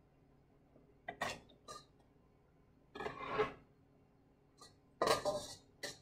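A chef's knife blade scrapes diced onion and celery across a plastic cutting board and into a stainless steel bowl. There are several short scrapes; the longest comes about three seconds in and the loudest about five seconds in.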